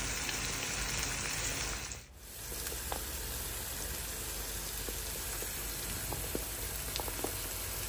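Two eggs frying over fried potatoes in a pan: a steady sizzle with a few small pops. It drops away briefly about two seconds in.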